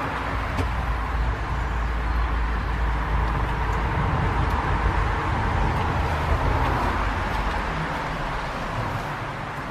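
Road traffic: a vehicle's low rumble and tyre noise that swells gradually and eases off near the end.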